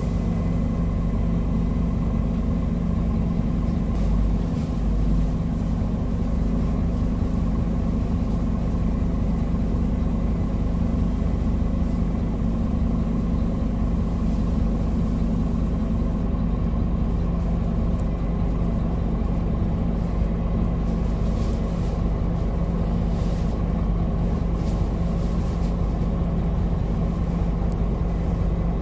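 Scania N230UD double-decker bus's five-cylinder diesel engine idling steadily while the bus stands still, heard from inside the lower-deck saloon.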